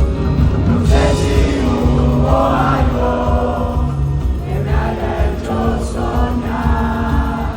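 Live rock band music with singing over a steady, heavy bass line, recorded at a concert.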